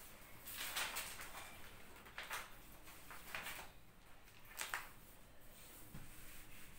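Four short rustling, scraping noises spread over several seconds against quiet room tone, from a teacher handling things at a whiteboard; by the end a duster is wiping the board.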